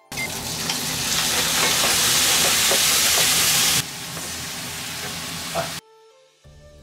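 Raw shrimp sizzling in hot oil in a frying pan with chopped garlic and ginger, pushed around with a wooden spatula. The sizzling drops to a softer level about four seconds in and cuts off near the end.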